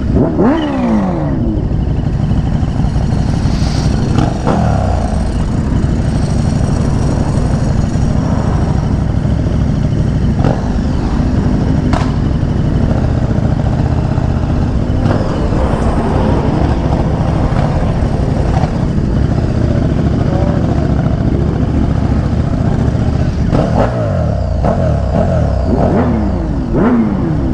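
Sport motorcycle engine running on the road, with wind rush. The engine pitch drops sharply a few times: near the start, about four seconds in, and near the end.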